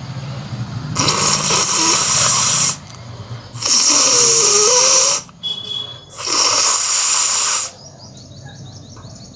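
A person blowing their nose hard three times, each a long noisy blast of air through the nose lasting a second and a half or so, with short pauses between.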